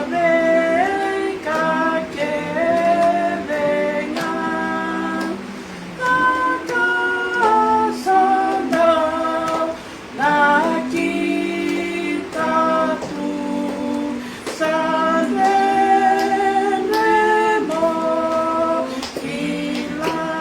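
Two women singing a hymn together, a slow melody of long held notes.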